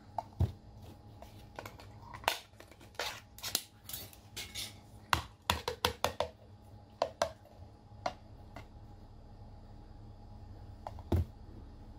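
Irregular sharp clicks, taps and light scrapes of a glass jar and hands working over a plate of sauce-glazed baby octopus, with a louder knock near the end.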